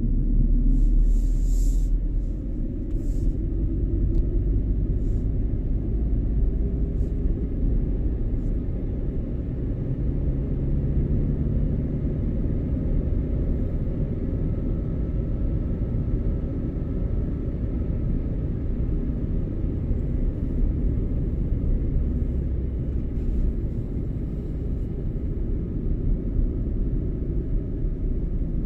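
Car driving at a steady pace: a continuous low rumble of engine and road noise, with a few faint brief clicks in the first few seconds and again later on.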